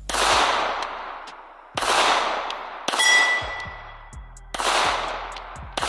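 Five pistol shots fired at a steady pace, about one every one and a half seconds, each with a long echo dying away. The third is followed by a short metallic ring.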